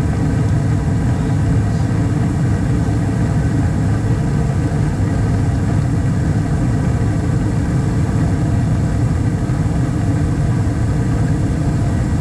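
2012 Bryant Legacy Line gas furnace running with a loud, steady low rumble.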